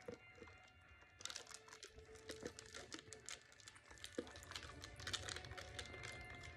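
Clear plastic soda cup with lid and straw crinkling and clicking in the hand close to the microphone as the drink is sipped, in a dense run of small clicks starting about a second in.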